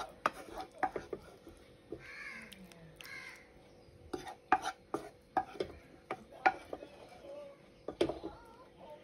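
Sharp, irregular clicks and taps of a spoon against a ceramic plate, coming in clusters. Two short harsh bird caws sound about two and three seconds in.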